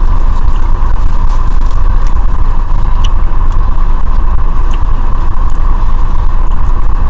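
Steady car-cabin noise, a dense low rumble with a hiss on top, from a vehicle with its engine running. A few faint clicks sound over it.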